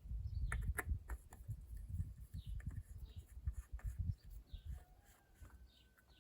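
Irregular low knocks and a few sharp clicks, with a bird's short chirps repeating about once a second in the background.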